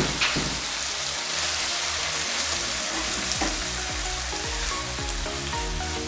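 Green bean curry sizzling in a non-stick wok, with a spatula scraping through it near the start. Background music with a steady beat comes in about a second and a half in and carries on under the sizzle.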